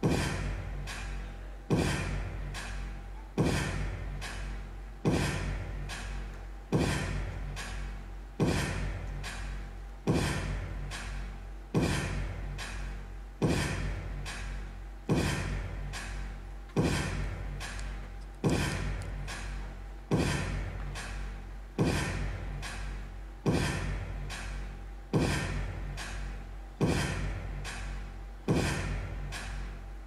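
Recorded soundtrack for a stage dance piece: a rhythmic pulse, each stroke starting suddenly and fading away, repeating about every 1.7 seconds over a steady low hum.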